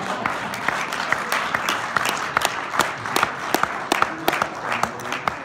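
Audience applauding, many hands clapping, the claps growing sparser toward the end.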